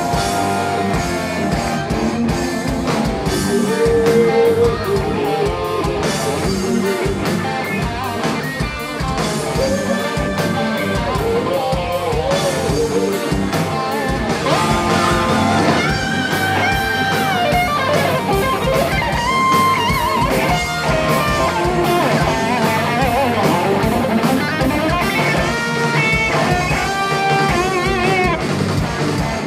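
Heavy metal band playing live: electric guitars to the fore over bass and a drum kit, loud and steady throughout.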